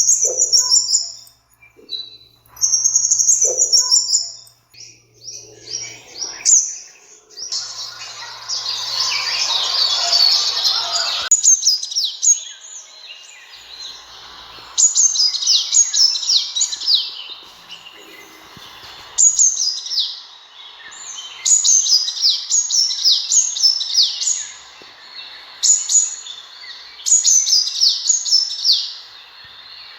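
Sunbird calling: repeated bursts of rapid, high, thin chirps, each falling in pitch, in series about two seconds apart. About eight seconds in, a noisy hiss runs under the chirps for a few seconds.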